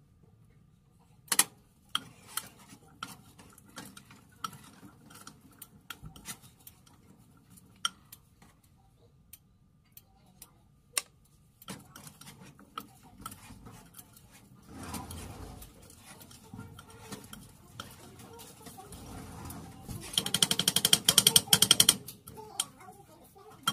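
A utensil clinking and scraping against a glass mixing bowl as chopped food is stirred, at first in scattered taps, then in about two seconds of fast, loud beating near the end.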